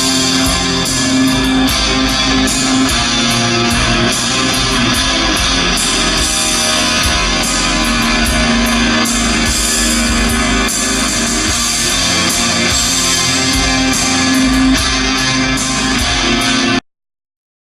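Loud music led by strummed guitar over a steady beat, cutting off abruptly about a second before the end.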